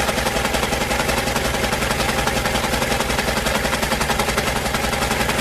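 Sewing machine running steadily at speed: a fast, even clatter of the needle mechanism stitching, many strokes a second.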